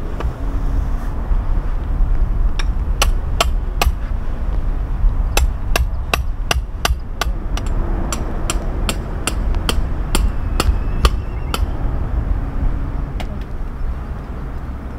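Peg hammer driving metal tent pegs into the ground: sharp metallic strikes, three about two and a half seconds in, then a steady run of about three a second for some six seconds, and one or two more near the end, over a steady low rumble.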